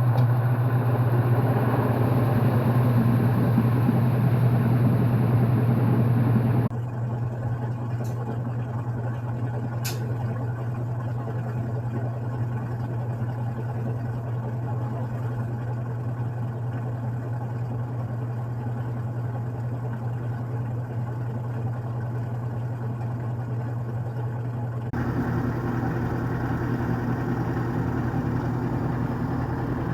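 IEM 8 kg automatic washing machine in its spin cycle: a steady low motor hum with the drum's whirring noise. The sound drops abruptly about a quarter of the way in, two sharp clicks follow a few seconds later, and it grows louder with more low rumble about five seconds before the end.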